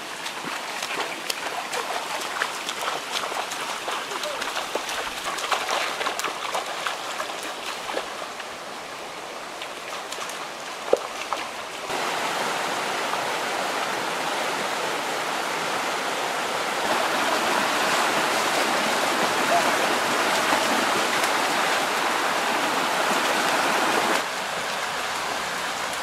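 Shallow rocky stream rushing over stones and small rapids, with splashing from someone wading through the water in the first few seconds. A single sharp knock comes about eleven seconds in, and the rushing abruptly gets louder about twelve seconds in.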